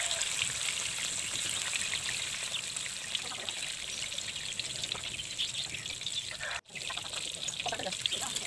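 Cubes of tofu frying in hot oil in a wok: a steady sizzle with fine crackling. It cuts out for an instant about two-thirds of the way through.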